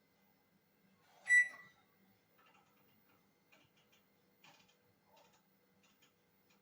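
Microwave oven: a clunk with a single short beep about a second in, then faint, irregular clicks as its control-panel buttons are pressed to set the cooking time.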